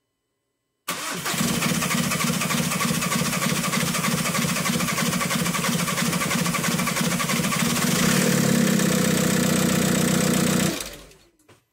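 Volkswagen 1.9 TDI pumpe-düse diesel (BRM) being started for the first time after a camshaft and timing belt replacement, with the fuel prime lost from the tandem pump. A loud, steady engine sound begins suddenly about a second in, changes in tone about eight seconds in, and stops just before the end.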